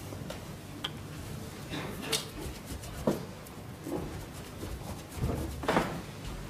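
Hushed snooker arena: low, steady room tone broken by a few short, sharp clicks, the loudest about two and three seconds in, and a brief noisy sound near the end.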